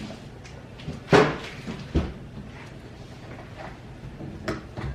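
Parts of a ring light and phone mount kit knocking and clicking together as they are fitted by hand. A sharp clack about a second in is the loudest, with another knock near two seconds and lighter taps near the end.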